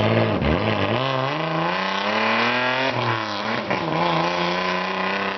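1980s Toyota sedan with a custom exhaust accelerating away: the engine note climbs for about two seconds, drops sharply at a gear change about three seconds in, then holds nearly steady.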